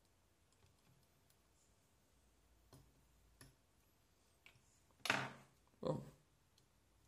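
Faint clicks from fingers working a small trimmer potentiometer and wires on a breadboard, then two louder short noises, about five and six seconds in.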